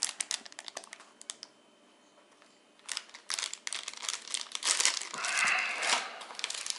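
Plastic packets of fishing spoon lures crinkling and rustling as they are handled, with a short lull about a second and a half in. The crinkling comes back louder near the middle, with a brief sliding, rubbing noise about five seconds in.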